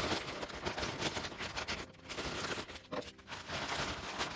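£2 coins clattering and scraping against each other as a pile is handled and spread out, a dense run of small metallic clicks with two short lulls.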